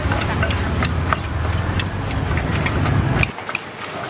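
Low, steady rumble of an idling motor-vehicle engine close by, which cuts off abruptly about three seconds in, with scattered light clicks and taps of kitchen utensils at a street food stall.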